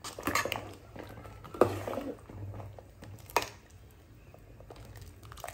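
Metal ladle stirring mutton soup in an aluminium pot as it comes to a boil: liquid sloshing with a few sharp clinks of the ladle against the pot, the loudest about a second and a half in and another just past halfway.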